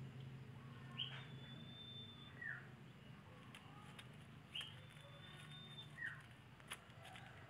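A faint bird call, given twice: a long, thin, steady high whistle, then a short falling note, with a few soft ticks near the end.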